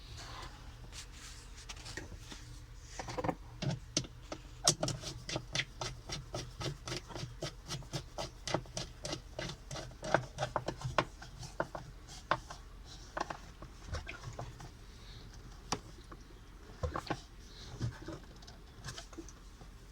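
A screw being driven in with a hand screwdriver over the washer on a washing machine's gearbox shaft: a long run of small sharp metal clicks and scrapes, about two to three a second, thinning out after about thirteen seconds.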